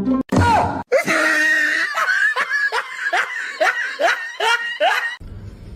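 A person laughing hard in a run of short, falling "ha" bursts, about two a second, which stops near the end.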